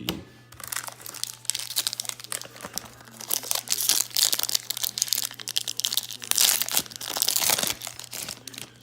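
Wrapper of a baseball card pack crinkling and tearing as it is opened by hand, a dense crackle that dies away near the end.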